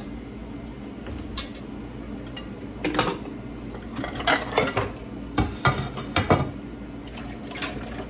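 Metal kitchen utensils and cookware clinking and knocking in scattered, irregular strikes, as a steel ladle is handled against pots and a stainless colander.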